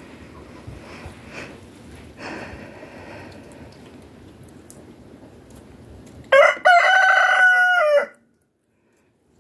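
Rooster crowing once, about six seconds in: a short first note, a brief break, then a long held cock-a-doodle-doo that drops slightly in pitch at its end, about two seconds in all. Before the crow there are only faint yard sounds.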